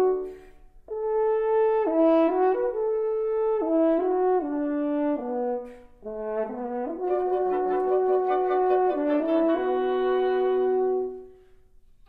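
Wind quintet of flute, oboe, clarinet, French horn and bassoon playing a contemporary classical piece: sustained notes stepping up and down in two phrases, with a brief break about six seconds in and the music stopping near the end.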